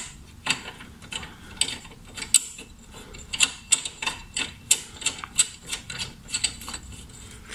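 Repeated sharp metallic clicks, two to three a second and slightly irregular, as the motorcycle horn's mounting bolt is worked back into place.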